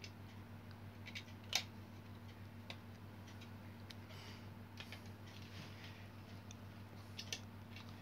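Light plastic clicks and taps from a screwdriver and hair dryer parts being handled during reassembly, scattered and irregular. The loudest click comes about a second and a half in and a quick pair near the end, over a steady low hum.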